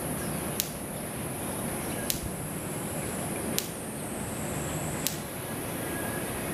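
Outdoor ambience: a steady high-pitched drone over a low background rumble, with a sharp click about every second and a half.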